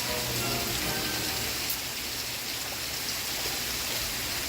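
Steady rain, an even hiss of falling drops.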